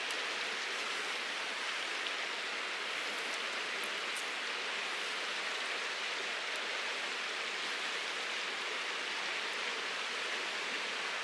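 Mountain stream rushing steadily, with a few faint high ticks over it.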